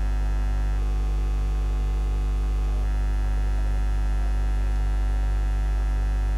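Steady electrical mains hum, a low buzz with a stack of overtones that holds at one level throughout.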